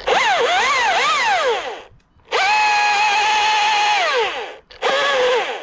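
Chainsaw cutting in three bursts. In the first its whine dips and rises several times under load, in the second it holds steady and then falls away, and the third is short. The saw stops completely between bursts.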